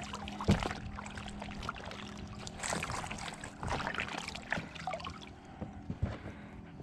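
Irregular light knocks and rustles around a plastic sit-on-top kayak at the water's edge, with a faint steady low hum underneath.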